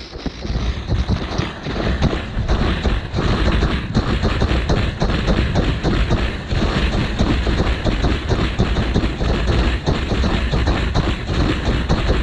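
Water jetting from a hose-fed gutter-cleaning wand and raining down, with spray and droplets spattering on the camera in a loud, uneven rush and patter.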